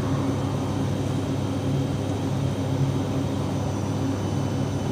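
A steady, even mechanical drone, like an engine or machine running, with a low hum under a wide rushing noise.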